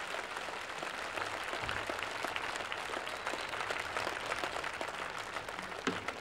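Large outdoor crowd applauding steadily, many hands clapping at the end of a song. There is one sharper knock near the end.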